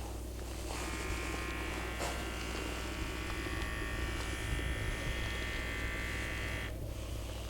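A small electric motor buzzing steadily for about six seconds. It switches on about a second in and cuts off suddenly near the end, over a constant low hum.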